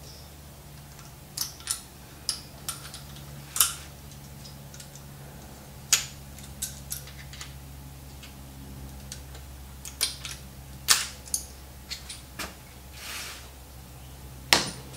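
Irregular sharp metallic clicks and clinks of hand tools, sockets and extensions, being handled and fitted. There are about fifteen of them over a steady low hum.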